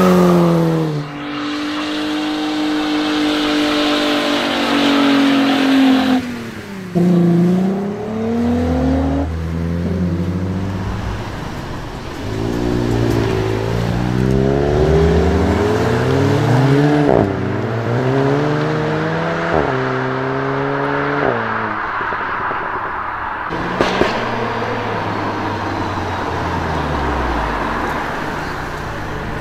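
Volkswagen Golf GTI engines held at high revs, then accelerating hard with rising revs broken by several quick upshifts. A single sharp exhaust crack comes about three-quarters of the way through.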